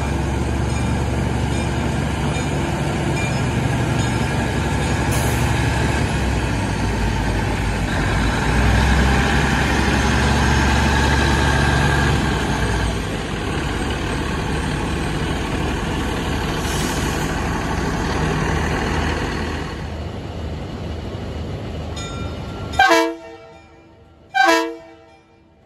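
Budd RDC-1 self-propelled diesel railcar running close by, with a steady engine drone and rolling rumble that ease off partway through. Near the end come two short horn blasts about a second and a half apart.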